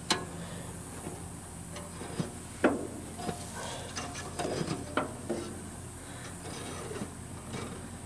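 Hand tools and metal parts clicking, knocking and scraping on the underside of a New Holland 273 Hayliner square baler during maintenance: scattered light knocks with rubbing between them.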